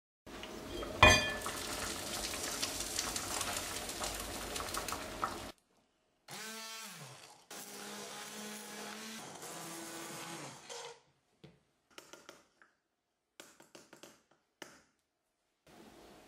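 Immersion blender puréeing bean and tomato soup in a cast-iron pot, in several separate runs: a sharp knock about a second in, then the motor spinning up and back down, a steady run of a few seconds, and short bursts near the end.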